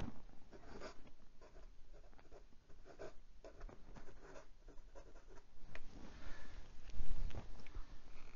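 Steel medium-nib fountain pen scratching across notebook paper in short handwriting strokes; the nib is fairly scratchy, with plenty of feedback. A few louder knocks come near the end as the pen is picked up and handled.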